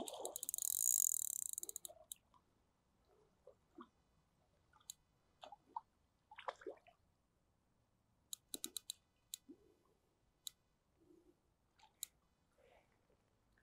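Fishing reel's drag clicking in a fast, even run for about two seconds as a hooked carp pulls line, then only scattered single clicks, with a quick run of about five clicks past the middle.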